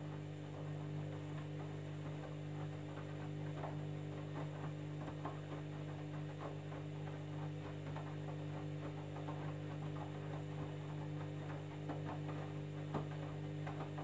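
Candy front-loading washing machine in the wash phase of its jeans cycle: a steady motor hum as the drum turns, with faint irregular knocks and splashes of the wet load tumbling.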